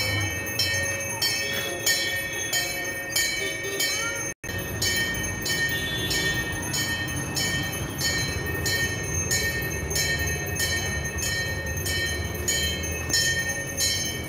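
Devotional music with a steady jingling bell beat, about one and a half strokes a second, over sustained high ringing tones. It cuts out for an instant about four seconds in.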